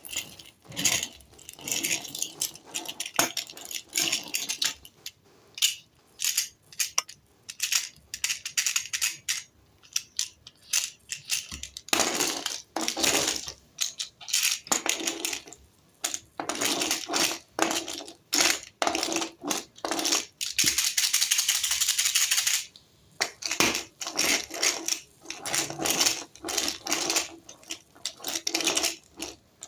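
Packaging being handled and pulled open: plastic and cardboard rustling and crinkling in irregular bursts, with sharp clicks and rattles. A longer continuous tearing rustle comes about two-thirds of the way through.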